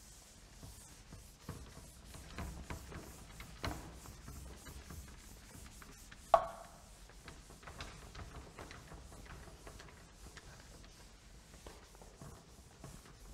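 Chalkboard eraser wiping a chalkboard in repeated short strokes. A single sharp knock about six seconds in.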